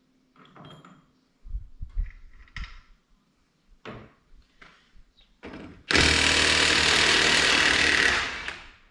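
A few scattered knocks and clunks, then a handheld power tool runs loud and steady for about two and a half seconds and winds down near the end, during work on a tractor's rear wheel.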